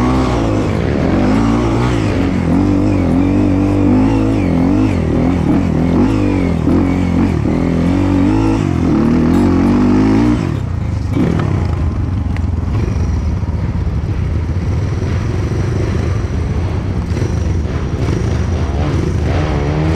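Dirt bike engine revving up and down as it is ridden, then dropping about ten seconds in to a steadier, slightly quieter idle as the bike stops.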